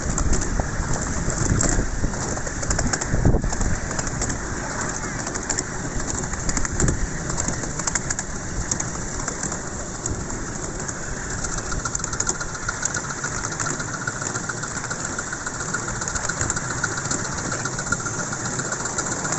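Miniature steam train running along its track, heard from on board: a steady rolling rumble and clatter of the wheels on the rails. About halfway through, a faint steady whine joins in.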